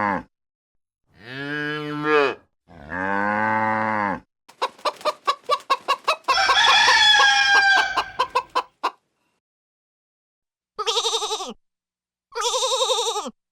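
A cow mooing twice, then chickens clucking in rapid pulses with a rooster crowing about six seconds in, then a sheep giving two short quavering bleats near the end.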